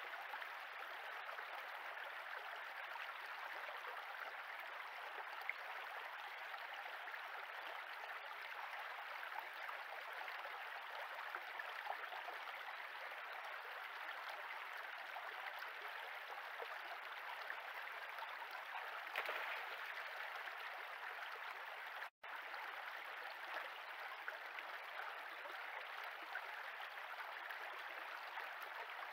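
Shallow stream running over stones: a steady rush of water, broken by a momentary gap about three-quarters of the way through.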